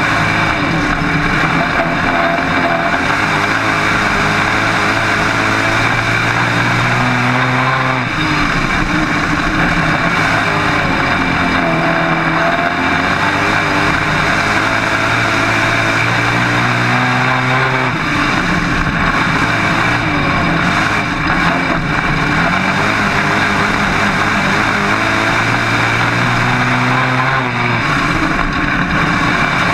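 Dirt-track modified race car engine heard from inside the cockpit, running hard through laps of the oval. The engine note holds steady, then drops and climbs again about every ten seconds as the driver lifts for the turns and gets back on the throttle.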